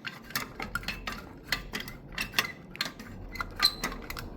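Irregular metallic clicks and clinks as a silicone caulking gun is handled and fitted against an air-conditioner fan motor's shaft and bearing to press the bearing off.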